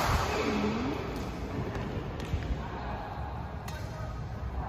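Badminton racket striking a shuttlecock right at the start, followed by a few fainter shuttlecock taps and a short vocal exclamation, over a steady low hum.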